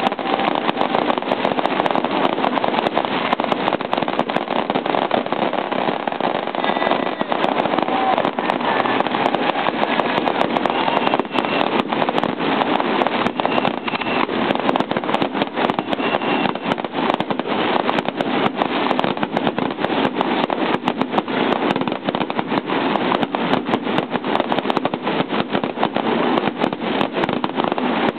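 Fireworks fountains and low bursts going off: a steady, loud rush of spraying sparks, dense with sharp crackles and pops.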